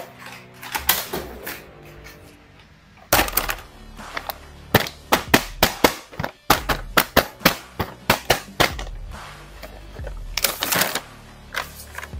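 Stiff plastic blister packaging crackling and clicking sharply as a toy action figure is pulled out of it by hand, in a quick irregular run of snaps over faint background music.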